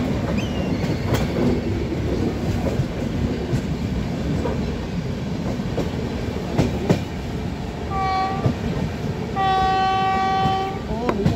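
Passenger train running on jointed track, heard from an open coach window: a steady rumble with occasional clacks from the rail joints. An electric locomotive's horn sounds a short blast about eight seconds in, then a longer, steady blast.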